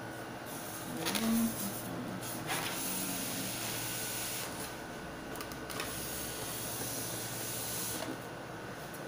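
HP DeskJet Ink Advantage 2135 inkjet printer running its mechanism: a steady motor whir over a hiss, with a few clicks about a second in.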